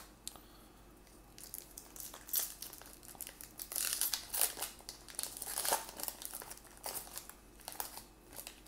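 Foil wrapper of a Topps Fire baseball card pack crinkling as it is torn open by hand, in irregular crackles that start about a second and a half in and are loudest near the middle.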